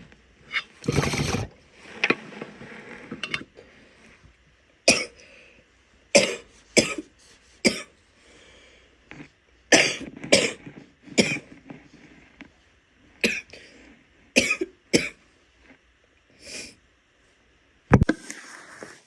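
A woman coughing repeatedly, wet, phlegmy coughs coming singly and in quick runs of two or three, about a dozen in all.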